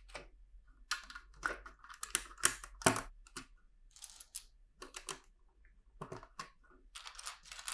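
Loose plastic LEGO bricks clicking and clattering as a hand sifts through a pile of them, in an irregular string of small clicks and rustles.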